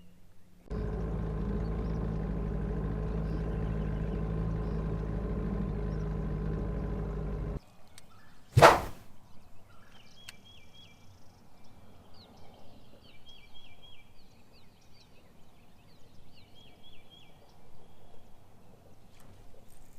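A steady, pitched hum that cuts off suddenly after about seven seconds, then one sharp whoosh. After that, a small bird gives short, high, repeated chirping phrases over faint outdoor background.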